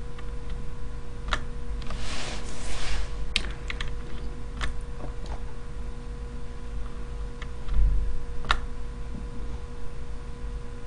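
Computer keyboard keys tapped a few times, sporadic single clicks rather than continuous typing, with a short rustle about two seconds in, over a steady electrical hum.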